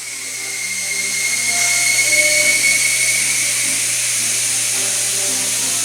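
Steady hiss with a thin high whistle through it, growing louder over the first two seconds, under soft background music.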